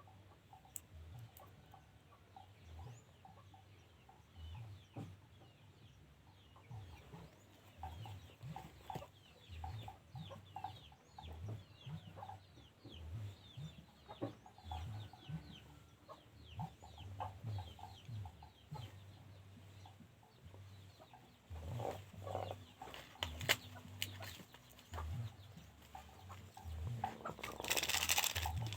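Domestic chicken clucking in short, low calls at an irregular pace, with faint high chirps throughout. A short burst of noise comes near the end.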